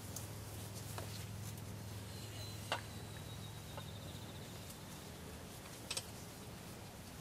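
Quiet field ambience: a steady low hum with a few soft clicks, the sharpest nearly three seconds in. A faint, thin, high whistle of a small bird begins a couple of seconds in and breaks into a quick trill before fading.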